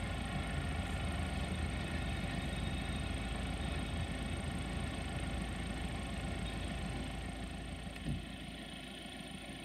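Diesel locomotive engine running steadily at low revs. A short thump comes about eight seconds in, and after it the sound drops and is quieter.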